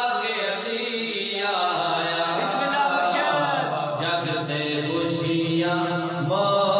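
A male voice singing a devotional manqabat in long, held notes that shift pitch every second or two, with layered vocal backing.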